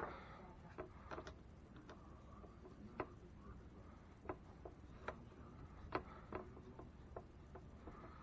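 Scattered light clicks and taps at an uneven pace as small parts and tools are handled while an RC truck is being taken apart, with a sharper knock at the very start.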